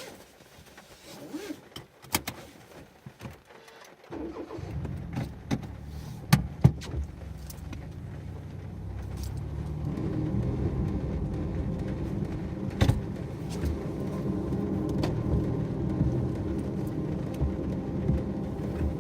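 Raindrops ticking on a car's roof, then about four seconds in the car's engine starts. It runs with a low rumble that grows louder as the car pulls away and then drives on steadily, with a few sharp clicks.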